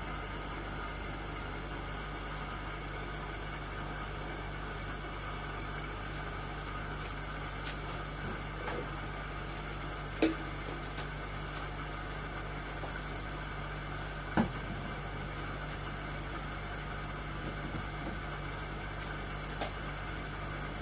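Indesit washing machine running with a steady hum, with two short knocks about ten and fourteen seconds in.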